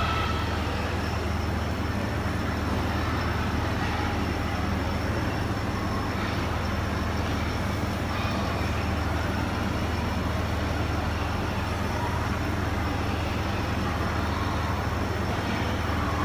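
Laser engraving machine running a job: a steady hum with a constant hiss from its water-cooling pump and fume-extraction fan, holding even throughout.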